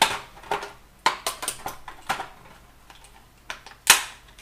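A moulded plastic packaging tray and a plastic car FM transmitter being handled as the unit and its cable are pulled out. It gives a series of irregular sharp clicks and clacks, the loudest near the end.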